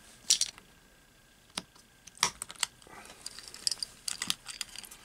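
Light plastic clicks and taps of a motorcycle key fob's case and circuit-board insert being handled, with a new CR2032 coin cell just seated in its holder. A few sharp clicks come singly, then a quicker run of small taps near the end.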